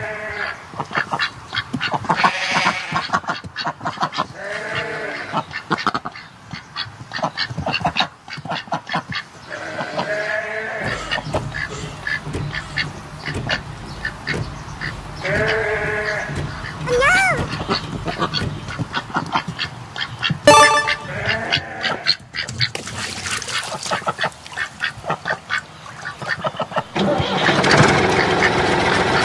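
Farm-animal calls: rapid duck-like quacking with several longer drawn-out calls, one of them rising in pitch. Near the end a tractor engine starts up and runs steadily.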